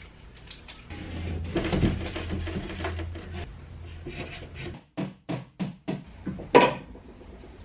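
Knocks, clicks and rustling of things being moved around on wardrobe shelves and drawers. There is a quick run of sharp clicks just past the middle and one louder knock near the end.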